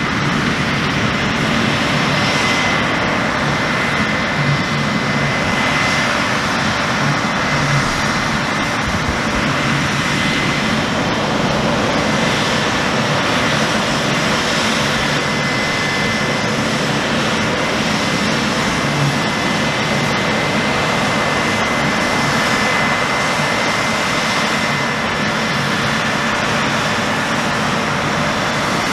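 New Holland CR10.90 combine harvester running under load while harvesting, a loud, steady mechanical drone with a thin high whine held through it.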